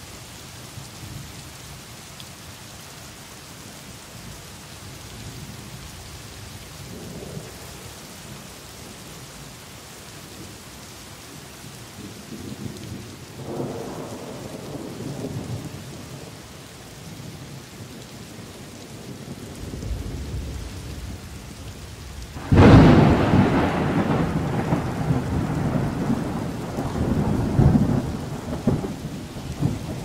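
Thunderstorm with steady rain: distant thunder rumbles low twice, then about three quarters of the way in a sharp, loud thunderclap breaks and rolls on for several seconds.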